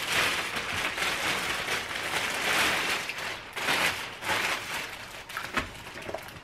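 A clear plastic bag crinkling and rustling in irregular bursts as a boxed phone is pulled out of it.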